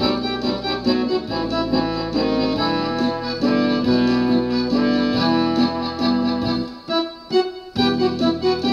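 Instrumental electronic keyboard music: a melody over sustained, organ-like chords. The sound thins briefly about seven seconds in.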